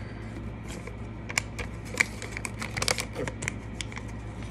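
A paper receipt crinkling and tearing in someone's hands: a run of irregular sharp crackles and clicks, thickest in the middle.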